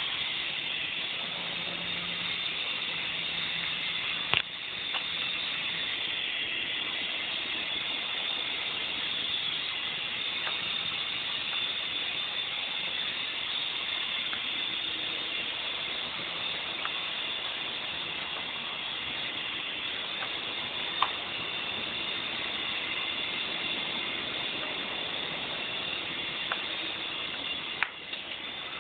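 Small indoor RC helicopter's electric motors and rotor blades whirring steadily as it flies, a high, even whine with a few sharp clicks.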